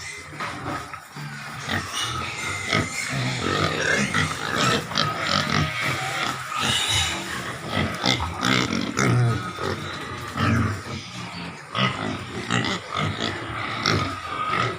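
Piglets grunting and calling, many short calls overlapping one another.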